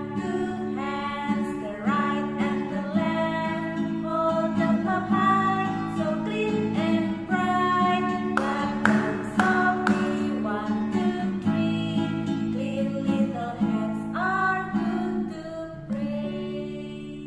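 Women singing with a strummed acoustic guitar.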